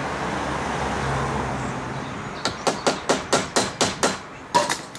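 Hammer tapping a screwdriver seated in the seized screw that holds a Kawasaki KDX200SR's power valve (KIPS) mechanism, to shock the screw loose. It gives a quick run of about eight sharp metal taps, roughly four a second, then after a short pause two more close together.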